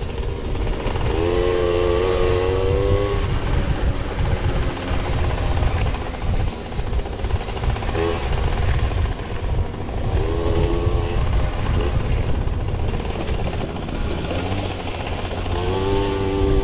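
Moped's two-stroke engine running hard on a rough dirt trail, under heavy low rumble and wind on the on-board camera. A whining engine note stands out several times, about a second in, around eight and ten seconds, and near the end.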